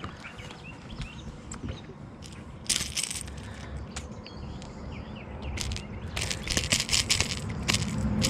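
A small bass being unhooked by hand from a topwater lure: short scraping, rattling handling sounds of the fish flopping and the lure's treble hooks. There is a louder burst about three seconds in and a cluster of them near the end.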